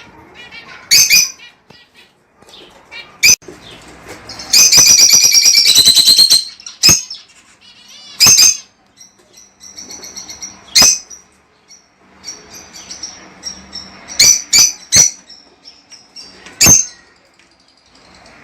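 Lovebirds calling: loud, shrill, sharp shrieks every second or two, a long rapid pulsing call about four and a half seconds in, and softer twittering between.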